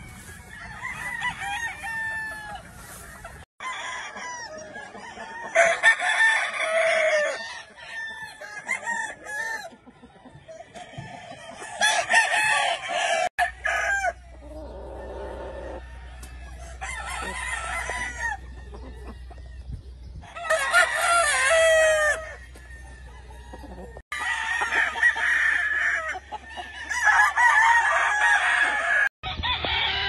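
Gamecock roosters crowing again and again, one crow after another every few seconds.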